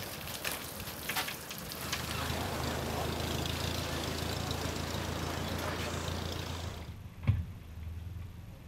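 Garden-hose water spraying and scrubbing on a boat's deck, then an old tractor's engine running steadily as it tows a boat trailer past. A single thump near the end.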